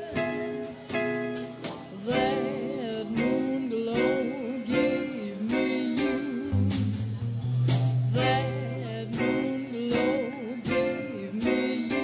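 A small swing band playing live: guitar, upright bass and drums, with a lead melody line that wavers with vibrato over the chords.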